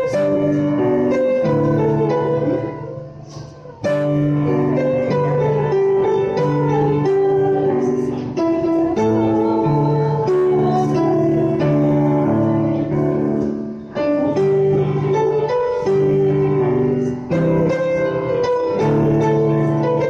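Hymn music on piano-like keyboard, playing steady held chords in an even beat. It fades away about two and a half seconds in and comes back suddenly at about four seconds.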